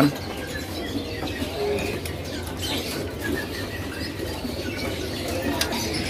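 Caged songbirds giving scattered short chirps and fluttering their wings, over a steady low hubbub of a busy bird market.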